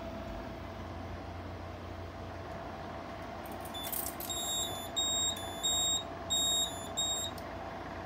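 Fire alarm control panel's built-in sounder beeping in short pulses, about four beeps a little under a second apart starting around halfway, as the panel resets and reinitialises into a trouble condition. A steady electrical hum from the panel runs underneath.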